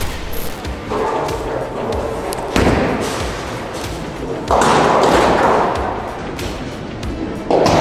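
A bowling ball lands on the lane with a thud about two and a half seconds in and rolls. About four and a half seconds in it strikes the pins with a loud crash of pins that dies away over a couple of seconds. Another loud burst of noise starts near the end.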